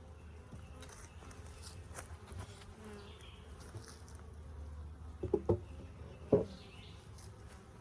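Honeybees buzzing steadily around an opened hive. A few sharp knocks about five seconds in and one more about a second later.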